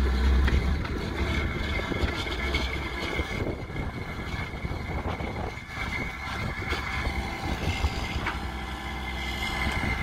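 Logging truck's diesel engine running to power the picker's hydraulics while the log loader's grapple unloads birch logs. A steady high whine sits over the engine throughout, with an occasional faint knock.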